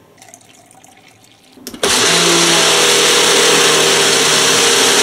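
Ninja blender switched on with a click about two seconds in, then running steadily at full speed, mixing mesquite powder with water into a drink.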